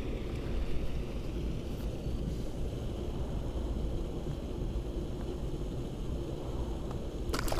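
Steady low rumble of wind on the microphone, with a brief burst of noise near the end.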